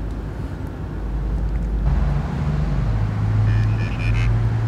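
A steady low hum under a hiss; its pitch steps up about two seconds in and again a little before three seconds.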